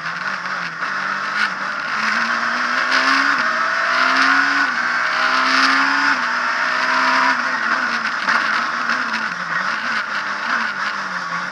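Abarth Punto S2000 rally car's 2.0-litre four-cylinder engine heard from inside the cabin at full race pace, its pitch climbing and dropping back several times as it shifts up through the gears, then falling and rising again under braking and acceleration, over constant tyre and road noise.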